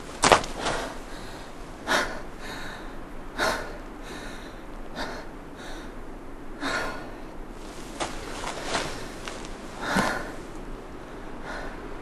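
A person breathing hard after running, with short, sharp breaths about every second and a half. The breath near the start and the one about ten seconds in are the loudest.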